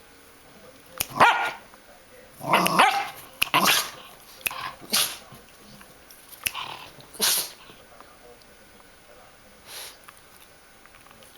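A pet sneezing again and again in short, sharp bursts, the sneezes set off by finger snapping, with a few quick snaps heard between them and a fainter sneeze near the end.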